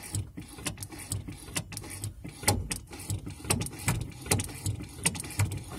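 Irregular clicks and light metallic knocks from a clutch pedal being pumped through its travel, working the pushrod of a hydraulic clutch master cylinder on a home-made steel bracket; the loudest knock comes near the middle.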